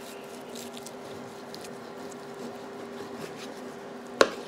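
Knife slicing through seared picanha on a cutting board, soft squishing and crackling cuts through the crust, with a sharp knock about four seconds in. A steady low hum runs underneath.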